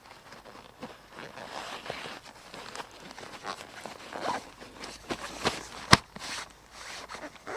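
Footsteps crunching in snow, uneven, with a sharp click about six seconds in.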